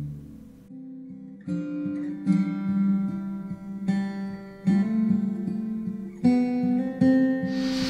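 Background music: acoustic guitar strumming chords, each strum starting sharply. A rushing noise comes in at the very end.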